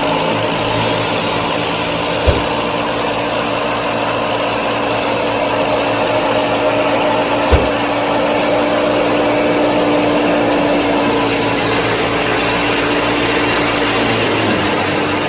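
Small motor-driven model machinery running steadily with a whirring gear rattle. Two sharp knocks, about 2 s and 7.5 s in, and the pitch dips slightly near the end.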